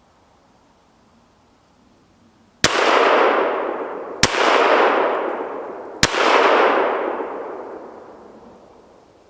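Three AR-15 rifle shots fired at a steady pace, a little under two seconds apart. Each crack is followed by a long echo trailing away.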